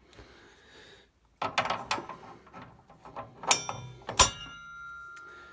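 Steel saw blade and arbor flange clinking together as the blade is seated on the table saw's spindle. Some scraping, then two sharp metallic knocks, the second the loudest, leaving a ringing tone that slowly dies away.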